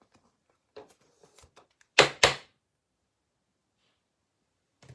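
Trading card being slid into a rigid plastic toploader: faint rustling and small plastic clicks, then two sharp taps about a quarter second apart, about two seconds in.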